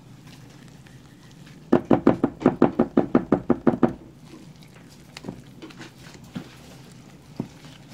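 A mixing utensil knocking against the side of a ceramic bowl as cornbread batter is beaten: a quick run of about a dozen knocks, roughly six a second, starting about two seconds in, then a few single knocks.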